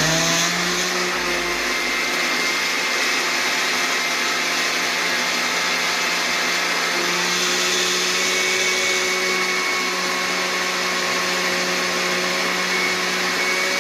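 Countertop blender switched on at the start and running steadily, blending a frappuccino mix of ice, banana, coffee and condensed milk.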